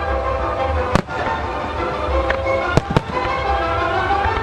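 Aerial firework shells bursting in the sky, a few sharp bangs: one about a second in and two in quick succession near the three-second mark. Music plays throughout under the bangs.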